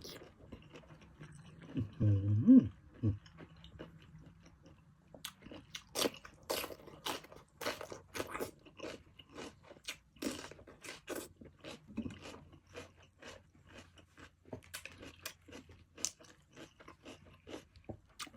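Close-miked chewing of blanched cuttlefish: wet mouth clicks and smacks coming irregularly and thickly from about five seconds in. A brief low vocal 'mm' sound about two seconds in is the loudest moment.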